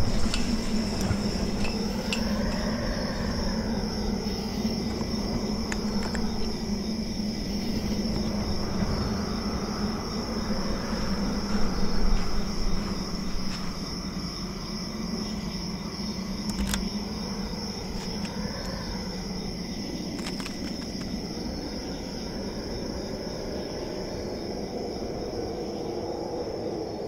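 Crickets trilling steadily at a high pitch over wind that swells and fades in gusts every few seconds. A few sharp clicks are heard, the first near the start as a chain-link gate's metal latch is worked.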